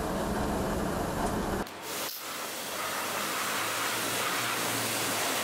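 A drill press running with a cutter working in a motorcycle piston. About a second and a half in, this gives way to a pressure washer hissing as it sprays water onto a scooter.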